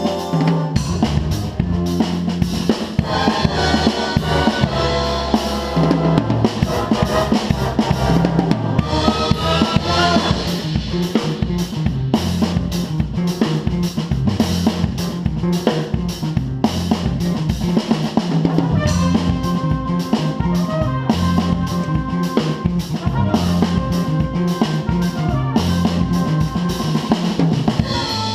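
Big band jazz playing, with the drum kit up front: steady kick, snare and rimshot strokes over the band's bass line and horn figures, heard from the drummer's seat.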